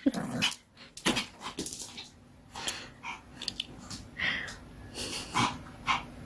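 Pomeranian growling in play while grabbing at a ball held in a hand, followed by a string of short, sharp noises and yaps as it plays.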